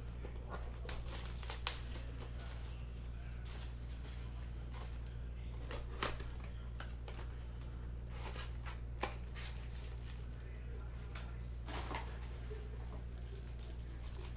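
Hands opening a cardboard Topps Chrome blaster box and taking out a foil card pack: scattered rustling and crinkling of card and wrapper with a few brief sharp taps, over a steady low hum.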